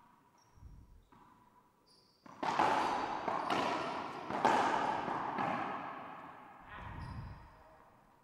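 Racquetball rally in an enclosed glass-walled court. About two seconds in, the ball starts cracking off racquets and walls roughly once a second, each hit echoing around the court. Sneakers squeak on the hardwood floor, with a few dull thuds.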